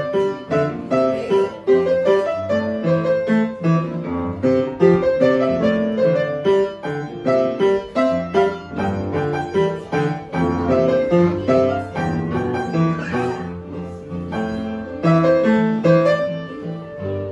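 Grand piano played solo: a continuous run of notes, melody over a moving accompaniment, briefly softer about two-thirds of the way through before picking up again.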